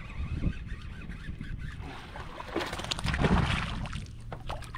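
Water lapping against a kayak hull, with wind on the microphone, and a louder splashing rush about three seconds in.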